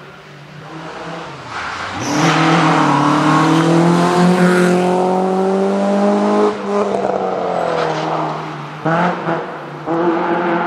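Rally car passing at full throttle, its engine revving hard with the pitch climbing for several seconds. About six and a half seconds in the revs drop off, followed by two shorter bursts of acceleration as it pulls away.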